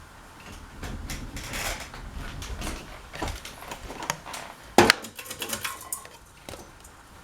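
Irregular clicks, knocks and rustling of things being handled, with one sharp, louder knock a little past the middle.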